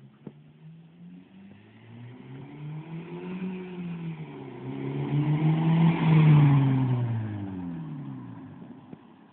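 2012 Honda Civic Si's 2.4-litre four-cylinder through a generic N1-style aftermarket exhaust, accelerating up the street toward the listener and passing. The exhaust note climbs in pitch with a brief dip about four seconds in, is loudest as the car goes by about six seconds in, then drops in pitch and fades.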